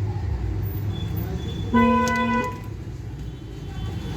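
A single steady horn toot, under a second long, about halfway in, over a low steady rumble.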